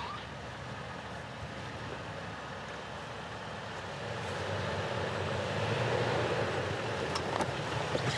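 Modified Toyota 4Runner crawling slowly over rocks in four-low, its engine under light throttle with a steady mechanical and tyre noise. The noise gets louder about halfway through, and a few sharp clicks or knocks come near the end.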